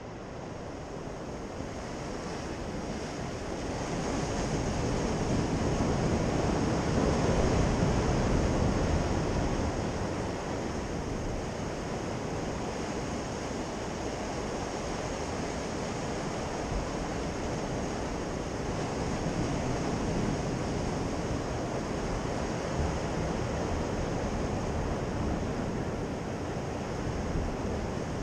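Sea surf breaking and washing over shore rocks: a steady rushing that swells louder for several seconds about four seconds in, then settles. Wind adds to the rush.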